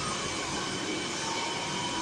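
Air ambulance helicopter parked on the ground with its turbine engines running: a steady rushing noise with a thin high whine over it.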